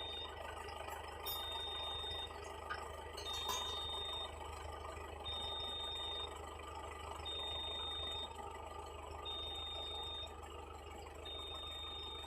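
An electronic vehicle warning beeper sounds a single high tone, about one second on and one second off, over a steady low engine hum and mechanical noise.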